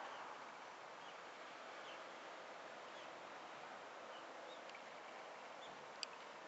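Quiet outdoor background hiss with faint, short bird chirps about once a second, and one sharp click near the end.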